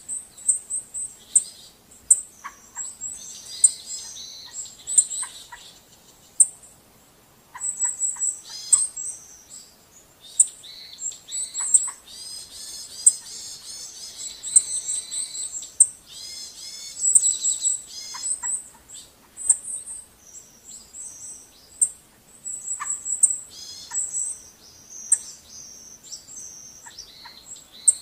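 Birds chirping and calling: many short, high notes and quick trills, overlapping and repeating throughout.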